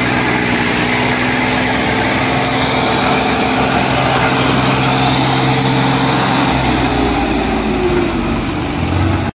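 Swaraj 855 FE tractor's three-cylinder diesel engine running steadily under load, pulling a trolley heaped with sand. Its pitch sags a little near the end, and the sound cuts off suddenly just before the end.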